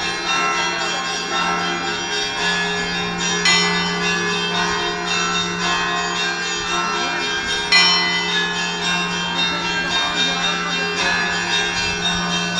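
Russian Orthodox monastery bells ringing together, many overlapping ringing tones over a steady low hum, with two heavier strokes standing out about three and a half and nearly eight seconds in.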